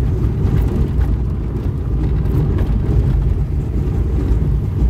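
Car driving on a rough bush road, heard from inside the cabin: a steady low rumble of engine and tyres, with a few faint rattles.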